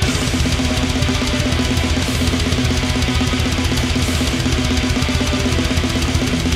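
Extreme metal instrumental passage: fast, even drumming with a rapid bass drum under heavily distorted guitars and bass.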